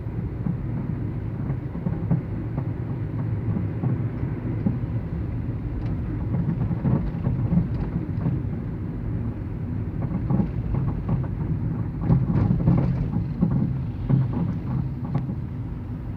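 Citroën C3 driving, with irregular knocks from the front suspension over the low rumble of the road and engine: a worn stabilizer-bar link (bieleta) with play in its ball joint, like a loose or broken part in the suspension.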